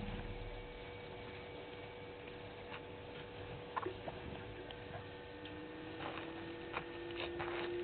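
Quiet outdoor night ambience: a steady faint hum, scattered small clicks and cracks that grow more frequent in the last couple of seconds, and a faint whine that slowly rises in pitch from about five seconds in.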